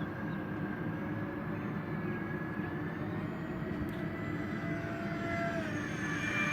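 Electric ducted fans of a radio-controlled Airbus A320 model jet in flight: a steady rushing drone with a thin whine that drifts in pitch, dipping about five and a half seconds in.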